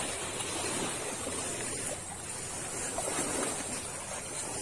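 Steady noise of wind and small waves washing against the rocks, with no distinct events.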